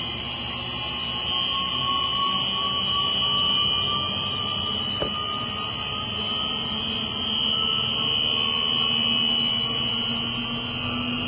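Sigma kneader mixer's discharge screw drive running at full speed: a steady high-pitched motor whine, with a lower tone slowly rising in pitch. One short click about five seconds in.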